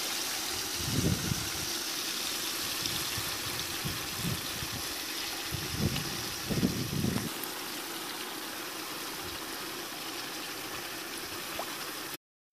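A steady watery rushing hiss with a few soft low thumps, about a second in and again around six to seven seconds in. It cuts off abruptly just before the end.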